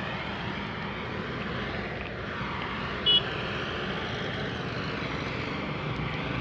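Steady noise of road traffic, with a short high chirp about three seconds in.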